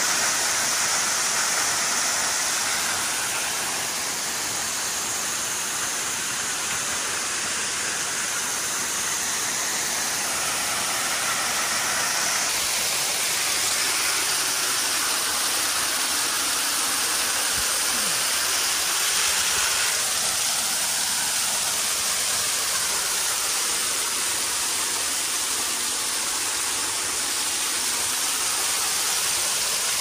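Waterfall pouring down a sloping rock face onto rocks, a steady rush of falling water heard up close in the spray.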